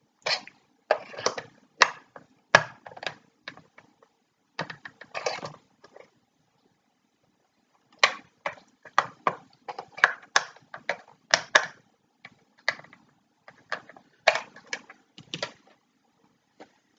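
Irregular clicks, taps and knocks of small hard parts of a model motorcycle engine kit being worked with a small screwdriver and handled, with a pause of about two seconds partway through.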